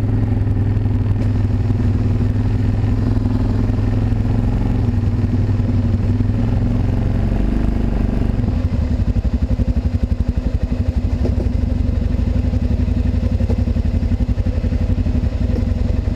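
ATV engine running steadily, then dropping back to a slow, pulsing idle about eight seconds in.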